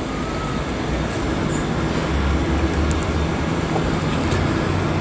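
Street traffic: a motor vehicle's engine running with a steady low hum, the rumble growing a little stronger around the middle.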